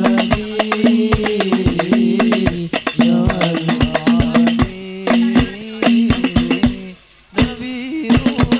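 Hadrah ensemble of hand-struck frame drums (rebana) playing a fast, dense rhythm under a held melody line. The music breaks off briefly about seven seconds in, then picks up again.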